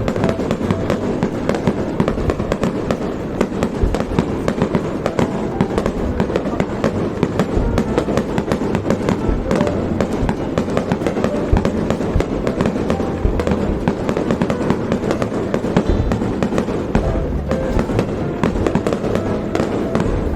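Fireworks display in a sustained barrage: shells bursting in a dense, unbroken run of bangs and crackles, many per second.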